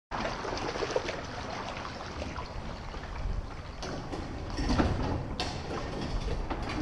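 Kayak paddle strokes: water splashing and dripping from the paddle blades and lapping at the plastic hull, with a few light knocks.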